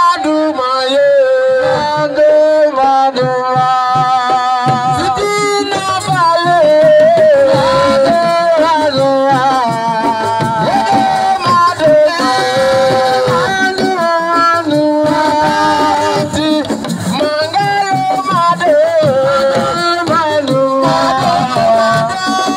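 Assiko music: a voice sings a wavering melody over hand drums.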